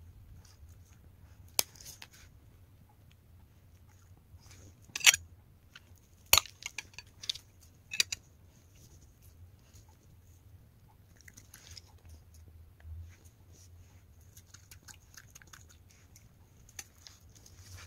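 Small dog chewing and licking soft cake with wet smacking, with a few sharp clicks of its jaws in the first half and a run of lighter clicks and smacks later on.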